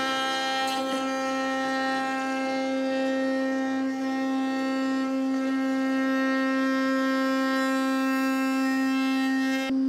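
Table-mounted router running at a steady high-pitched whine while its roundover bit cuts the edges of an end-grain maple and walnut cutting board. The whine breaks off briefly near the end.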